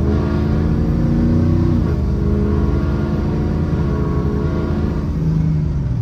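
2005 Ford F-250's 6.0 L Powerstroke V8 turbodiesel heard from inside the cab, running well at full operating temperature. The engine note rises for about two seconds, falls back, then runs steadily.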